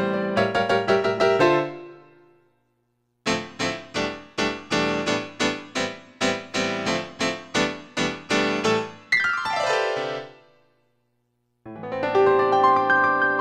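Yamaha S03 synthesizer playing factory preset sounds: one patch rings out, and after a short silence a new one comes in with sharp, quickly fading notes struck about two or three a second. The notes end in a quick falling slide, and after another short silence a further patch begins with held notes near the end.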